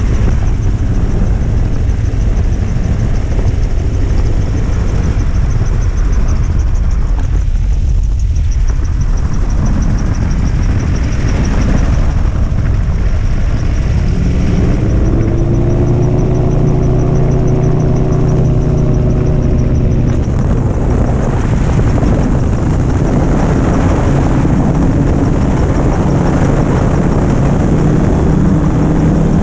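Gyroplane engine and propeller running steadily in flight, with loud wind rushing over the open cockpit. The engine note stands out more clearly for a few seconds about halfway through, rising slightly before it fades back into the wind noise.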